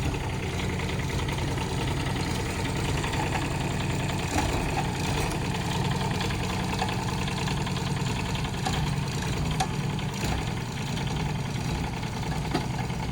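Kubota K008-3 mini excavator's three-cylinder diesel engine running steadily as the machine works, with a few faint clicks.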